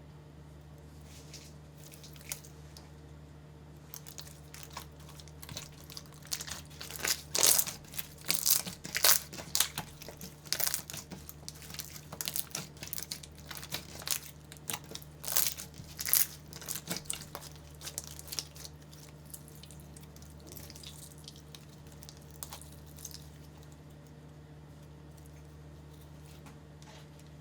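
Slime being pressed and worked, giving off dense runs of sharp crackling pops that build up a few seconds in, are loudest in the middle and thin out near the end, over a faint steady hum.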